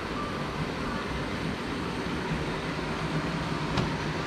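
Steady hum and hiss of background noise, with one sharp click near the end.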